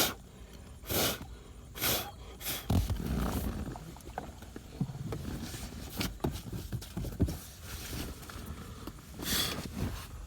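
Plastic centre-console trim of a Volvo S40 being handled and pressed into place: a few short clicks and knocks, four in the first three seconds and another near the end, with low rubbing and handling noise between them.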